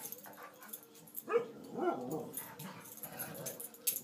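Two dogs play-fighting and vocalizing: a short bark-like call a little over a second in, then a wavering, whining call about two seconds in, with softer whimpers between.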